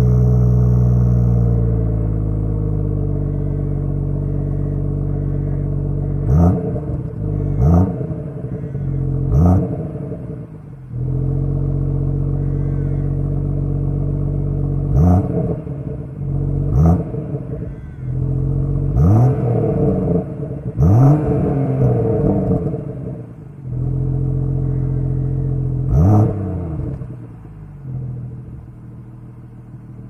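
BMW M140i's 3.0-litre turbocharged straight-six running on its standard factory exhaust, heard at the tailpipes. It idles steadily, settling to a lower idle in the first few seconds. About ten quick throttle blips rise sharply in pitch and fall straight back to idle.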